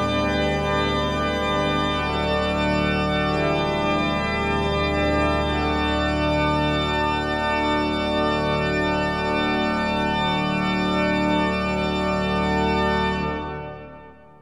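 Background music of long held chords, fading out near the end.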